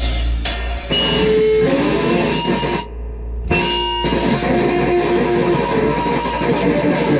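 Rock music with strummed electric guitar and a full band. About three seconds in, the top end drops out for about half a second before the full sound comes back.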